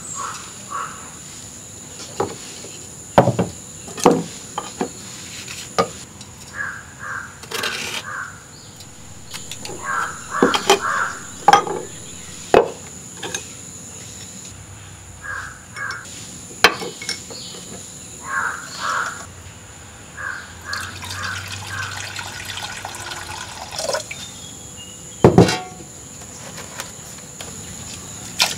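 Crows cawing in short runs of three or four calls, repeated throughout, over kitchen handling noises: scattered sharp clicks and knocks of a spoon and clay pots, the loudest knock near the end.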